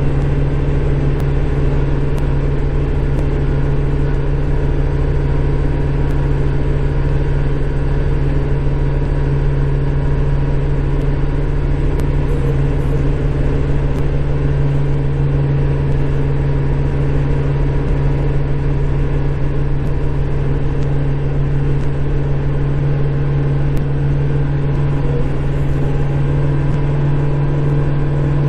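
Kubota Grand L5740 tractor's diesel engine running steadily at working speed, driving a snowblower, heard from inside the cab as an even, unchanging drone.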